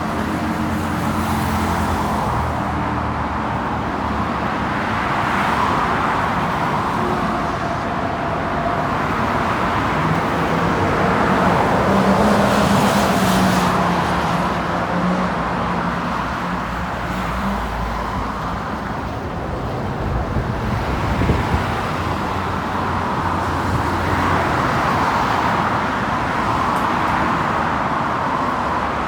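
City road traffic: cars and other vehicles running and passing steadily, with one engine's drone standing out for several seconds in the middle and a couple of brief knocks later on.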